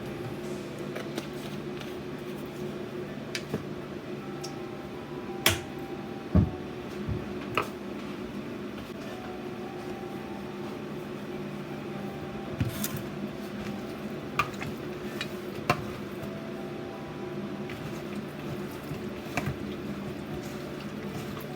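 Hands mixing and rubbing seasoning into raw chicken pieces, a soft wet squishing, with scattered sharp knocks of a pan or dish. The loudest knocks come about five and six seconds in. A steady low hum runs underneath.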